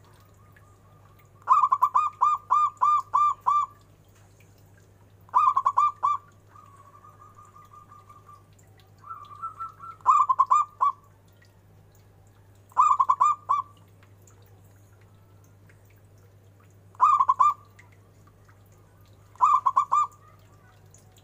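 Zebra dove (perkutut) cooing: six bursts of quick, evenly spaced staccato notes, the first and longest about seven notes. A softer, low trilling churr comes between the second and third bursts.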